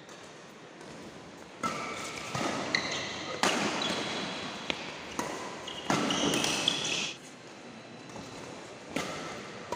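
Badminton rally: rackets striking the shuttlecock in several sharp hits, with sneakers squeaking on the court floor in short high chirps.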